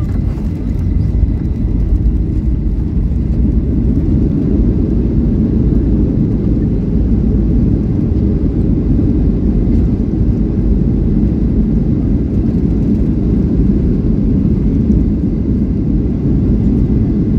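Cabin noise of a Boeing 737-800 moving on the ground, heard from a seat over the wing: a steady, loud low rumble from the CFM56 engines and the rolling airframe, slightly louder after the first second.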